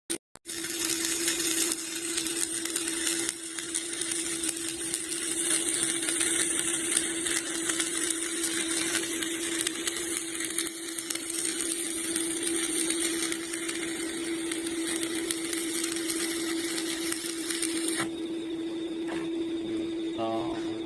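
Electric arc welding: a continuous crackling, sizzling arc over a steady hum. The arc cuts off abruptly about three seconds before the end, leaving only the hum.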